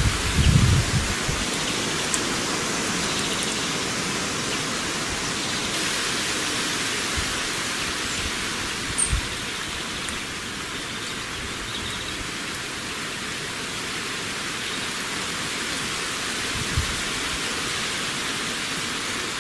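Steady, even hiss with a few soft low thumps: a cluster in the first second, one about nine seconds in and one near seventeen seconds.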